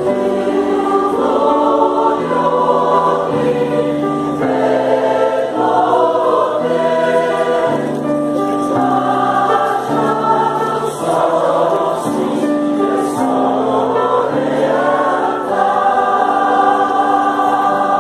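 Large mixed choir of women and men singing in parts, holding sustained chords that move from note to note.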